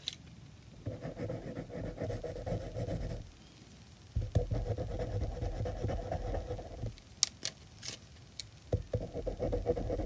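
Wax twist crayons scratching back and forth on paper as an area is coloured in, pressed hard, in three spells with short pauses between them. A few sharp clicks come around seven to eight seconds in.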